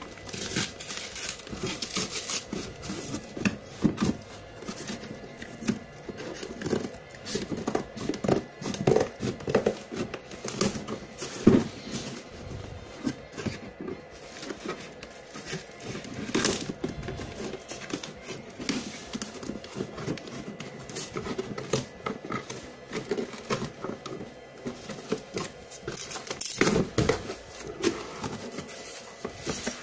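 A cardboard parcel being opened by hand: packing tape peeled and torn, scissors snipping through tape, and cardboard flaps rustling and scraping, in irregular crackles and scrapes. Quiet instrumental music plays underneath.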